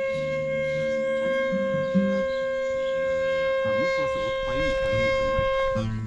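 Bansuri, a side-blown bamboo flute, holding one long steady note for nearly six seconds, then cutting off abruptly near the end.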